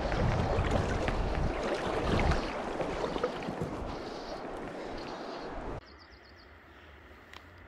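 River water rippling and splashing close to the microphone, with wind rumbling on it for the first two seconds or so. About six seconds in, the sound cuts abruptly to a much quieter river background with a small bird's brief twittering.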